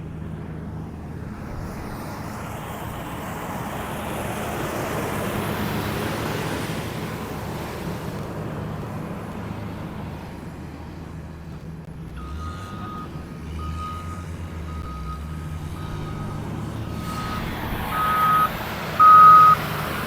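Heavy road-construction machines running with a steady engine hum, which swells and fades in the first half. About twelve seconds in, a reversing alarm starts: short high beeps about one a second, growing louder toward the end.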